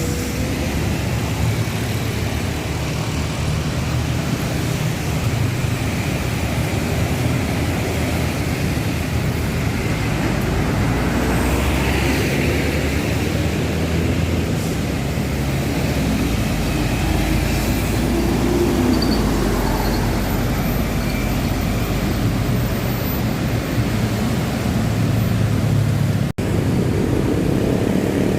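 City street traffic with bus engines running: a steady low rumble, with a momentary break near the end.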